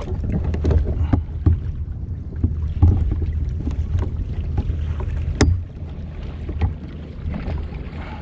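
Scattered knocks and clicks on a plastic fishing kayak over a steady low rumble of water and wind, as a sea bass is landed in a landing net; one sharper knock comes about five seconds in.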